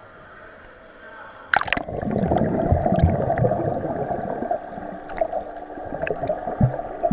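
Water splashing as the microphone plunges under the surface about a second and a half in, followed by loud, muffled underwater churning and gurgling with scattered low thumps from children kicking in the pool.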